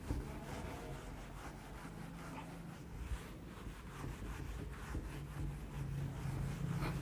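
Whiteboard eraser rubbing across a whiteboard in repeated wiping strokes, over a low steady hum.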